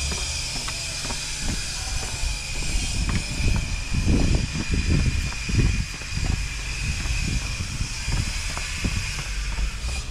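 Footsteps going down concrete stairs, a regular step about every half second, over a steady high hiss and wind rumble on the microphone, louder in the middle.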